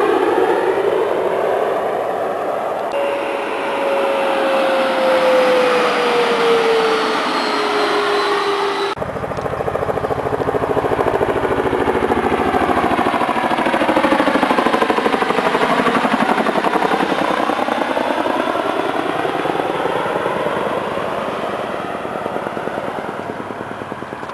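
Beechcraft 1900 turboprop passing low on landing approach, its propeller tone gliding down in pitch as it goes by. About nine seconds in it gives way to a Chinook tandem-rotor helicopter flying over with a rapid rotor-blade beat, fading toward the end.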